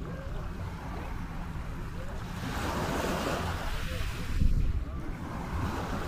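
Small waves washing onto a sandy shore, one wash swelling and falling away about halfway through. Wind buffets the microphone throughout, with a strong low gust just after the wave, and faint voices of beachgoers in the background.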